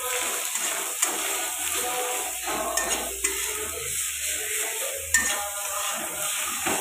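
Steel spatula stirring and scraping onions, tomato and spice powders sizzling in a wok, with sharp clinks of the spatula against the pan about a second in, near three seconds and about five seconds in.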